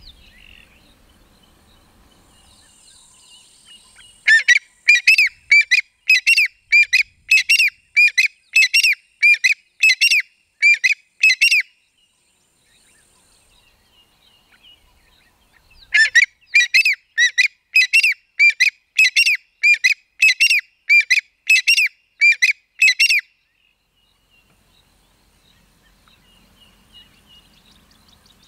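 A francolin calling: two long bouts of loud, harsh, evenly repeated notes, about three a second, each bout lasting about seven seconds with a pause between.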